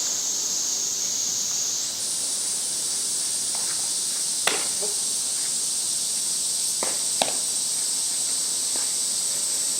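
A steady high-pitched insect chorus, with two sharp cracks of a bat hitting a softball, about halfway through and again a few seconds later.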